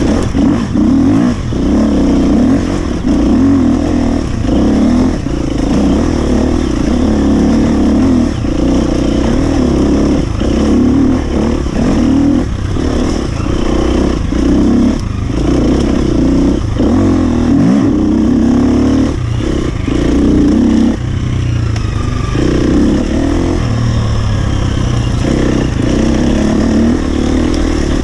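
2017 Husqvarna FE 250's single-cylinder four-stroke engine revving hard and easing off over and over, the throttle chopped briefly every second or two, as the enduro bike is ridden.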